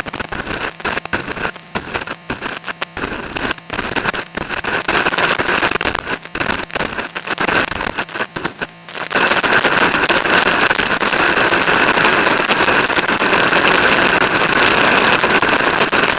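Strong wind buffeting the microphone: choppy, crackling gusts with sudden dropouts, turning about nine seconds in to a steady loud rush of wind noise.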